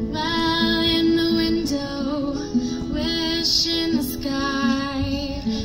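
A woman singing in long held lines, accompanied by her own acoustic guitar.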